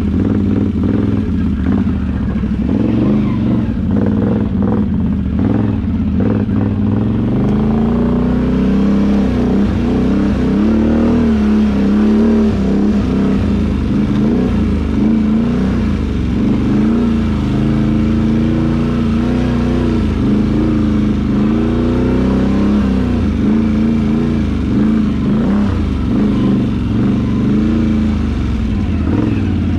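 ATV engine revving up and down as it is ridden through muddy ruts, its pitch rising and falling unevenly with the throttle. Knocks and rattles come through in the first several seconds.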